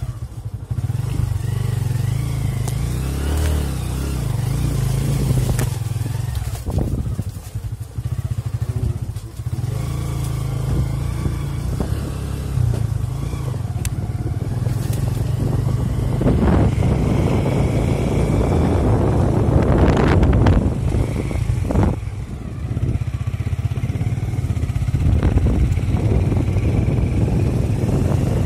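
Motorcycle engine running steadily while riding a rough dirt track, with rattling and rushing noise that grows heavier in the second half.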